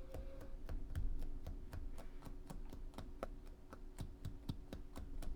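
Fast, even scratchy clicks, about four to five a second: a stiff hairline dubbing brush being stroked through a rabbit-fur dubbing loop to tease out the fibres.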